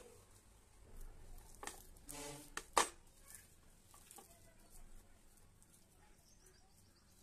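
Hands mixing and kneading a stiff fruit-and-flour dough in a plastic bowl, with a few sharp clicks and knocks, the loudest a little under three seconds in. A short pitched call sounds just before that loudest knock.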